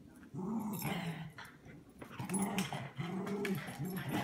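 Small dogs growling in play as they wrestle: a run of short growls that rise and fall, starting about half a second in.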